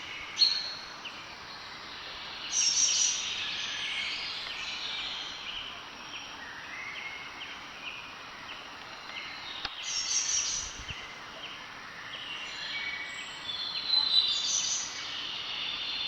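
Several birds chirping and calling over a faint steady background hiss, short high notes all through, with louder bursts of song about three seconds in, around ten seconds and near fourteen seconds.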